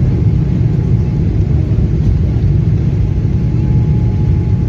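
Jet airliner's turbofan engines at takeoff thrust on the takeoff roll, heard inside the cabin as a loud, steady, low rumble.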